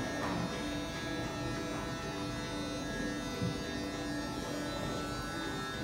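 Electric hair clippers running with a steady buzz while cutting short hair.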